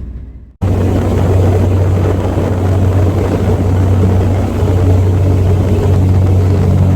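Fast passenger ferry under way: its engines make a steady low drone over a loud rushing noise, cutting in abruptly about half a second in.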